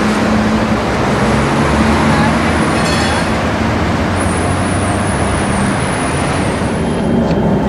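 City street traffic: a steady rumble of vehicle engines and tyres, with a running engine close by.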